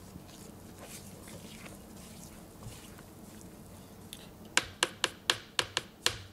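Spatula stirring flour into cake batter in a mixing bowl: soft scraping strokes, then, about four and a half seconds in, a quick run of sharp knocks, about four a second, as the spatula strikes the bowl.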